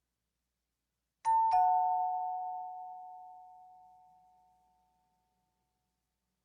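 Two-tone ding-dong doorbell chime: a higher note, then a lower one about a third of a second later, both ringing on and fading away over about four seconds.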